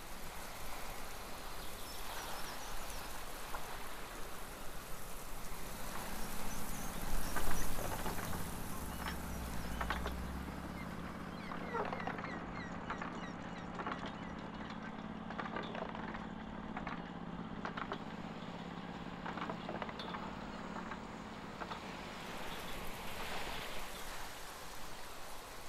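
Coastal sea ambience, a steady wash of waves and wind with scattered short sharp sounds and a low rumble peaking about seven seconds in. About six seconds in, the low steady drone of a motorboat engine comes in and fades out about twenty seconds in.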